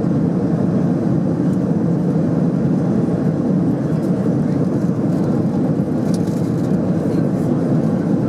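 Steady cabin noise inside an Airbus A330-200 in flight: an even rumble of the engines and rushing air with a faint steady hum, unbroken throughout.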